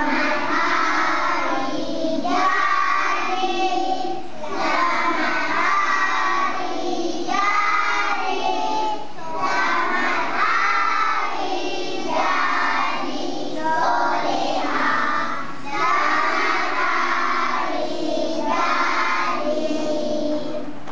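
A group of young children singing a birthday song together, in short phrases with brief pauses between them.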